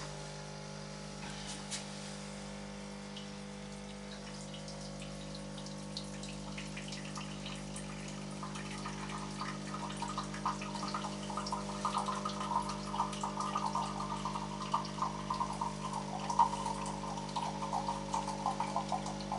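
Coffee machine running with a steady hum while water gurgles through it, the gurgling growing louder from about nine seconds in.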